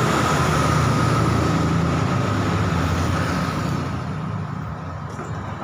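A small engine running steadily with a high whine over it, fading gradually over the second half.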